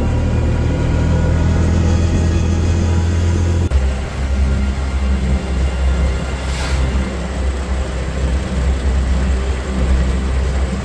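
Background music with sustained droning notes, cutting off abruptly about four seconds in to the sound of riding in an auto-rickshaw: its small engine running and a steady road rumble. A brief swell of hiss comes and goes a little past the middle.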